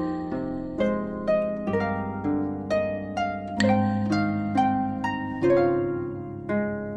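Harp music: plucked notes and chords on a concert harp, each striking and ringing out as it fades, a new one about twice a second.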